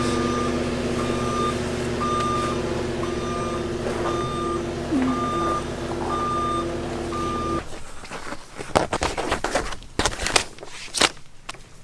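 A vehicle's backup alarm beeping about once a second over the steady hum of an engine or motor, both cutting off abruptly about two-thirds of the way in. Scattered sharp clanks and knocks follow.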